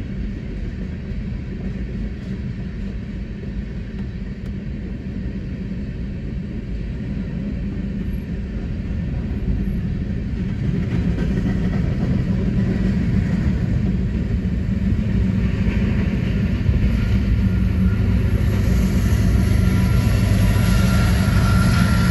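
Empty coal train's hopper cars rolling past with a steady rumble of wheels on rail, heard from inside a car. It grows louder over the second half as the rear distributed-power diesel locomotive, a GE ES44AC, comes by with its engine running.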